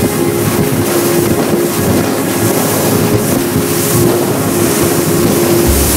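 Center-console boat running fast on open water: a steady engine drone with a held tone, under the rush of water and spray along the hull and wind on the microphone.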